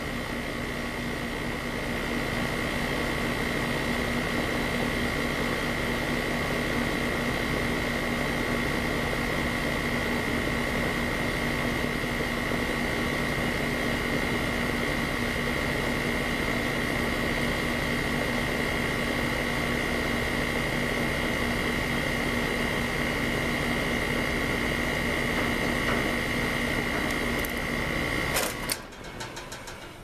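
Air-conditioner condensing unit running during a manual pump-down, its compressor and condenser fan giving a steady hum with a constant high whine while the contactor is held in by hand. About two seconds before the end there is a click and the unit cuts off as the contactor is released, with the low side pulled down to about zero PSI.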